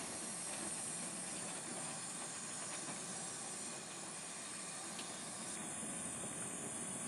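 Steady hiss of escaping steam from the narrow-gauge steam locomotive Palmerston, an 1864 George England saddle tank.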